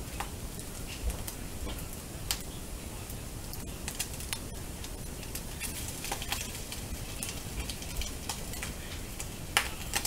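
Scrambled egg frying in a nonstick frying pan: a steady low sizzle with scattered sharp pops and crackles, and one louder crack near the end.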